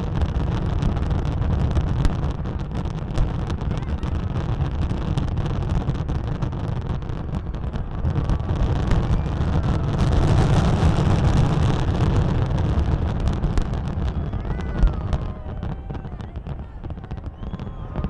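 Dense, continuous fireworks barrage: a steady low rumble of shell bursts peppered with many sharp cracks, swelling midway and thinning out over the last few seconds.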